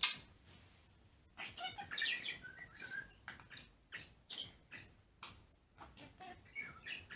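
Blue budgerigar warbling and chirping as it chatters at the finger it perches on: one sharp chirp at the start, a quick run of chattering warble notes from about a second and a half in, then short scattered chirps and clicks.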